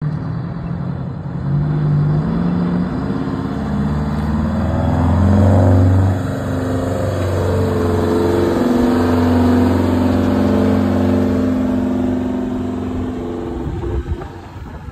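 Semi truck's diesel engine pulling a loaded trailer past, its note holding steady pitches that shift in steps, loudest about five to six seconds in, then falling away near the end as the truck passes.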